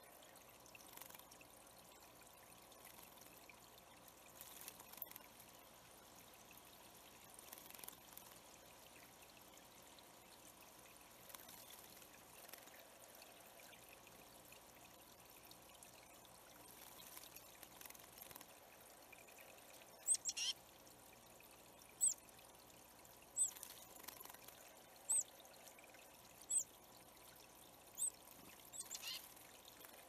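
Water trickling steadily into a shallow rock-lined bird pond. From about twenty seconds in a bird gives a series of short, sharp, high chip notes, one every second and a half or so.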